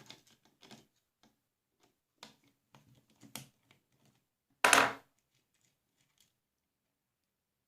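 Hand tools working on the metal stapler while the bolt holding its track to the body is loosened: scattered small clicks and knocks, with one louder metallic clatter lasting about half a second a little after halfway.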